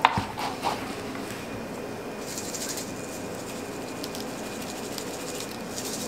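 A rack of raw pork ribs handled on a plastic cutting board with a few soft knocks, then coarse salt-and-pepper rub shaken from a shaker container over the meat, a faint granular rattle and hiss about two seconds in and again near the end.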